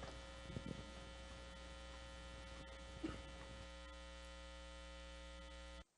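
Steady electrical mains hum in the microphone feed, faint, with a brief faint sound about three seconds in; it cuts off suddenly near the end.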